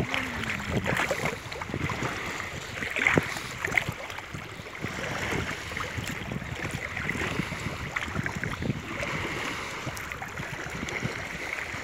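Shallow water swishing and splashing around legs wading through it, in uneven strokes, with a few sharper splashes about three seconds in.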